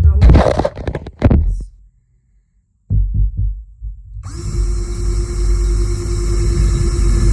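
A power drill spinning up and running steadily at constant speed, drilling a test hole, starting about four seconds in after a few handling knocks.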